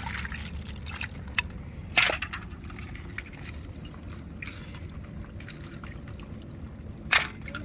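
Crabs being washed by hand in water: water sloshing and dripping with small clicks of shell. There are two sharp knocks, about two seconds in and again near the end.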